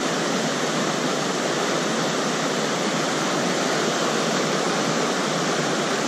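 Fast creek current rushing over rocks through whitewater riffles: a steady, even rush of water.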